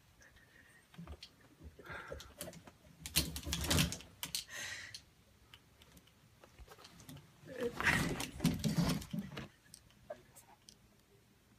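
Plastic clothes hangers clicking and clattering against each other and the closet rod as a tangled cat struggles among them, with clothes rustling. There are two louder bouts of clatter, about three seconds in and again about eight seconds in.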